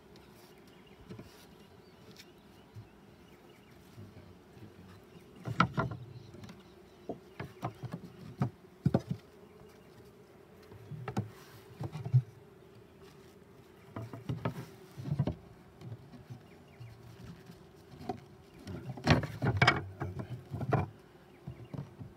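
Honey bees buzzing in a steady hum over an open hive, with scattered wooden knocks and scrapes as the hive frames and wooden cover boards are handled; a cluster of louder knocks comes near the end.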